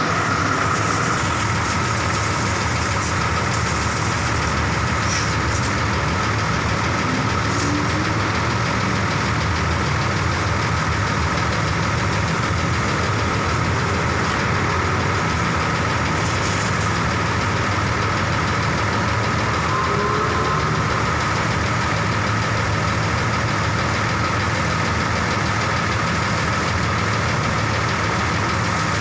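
Diesel coach engine idling steadily, heard through its open rear engine bay.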